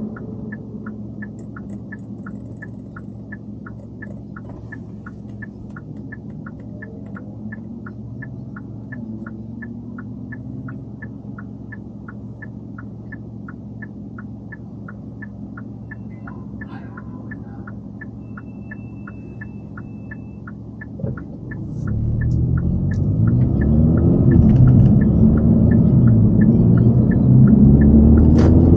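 Car's turn-signal indicator ticking evenly, about two and a half ticks a second, over a low engine idle. The ticking stops a little past two-thirds of the way through and the car pulls away, its engine rising in pitch and growing much louder as it accelerates.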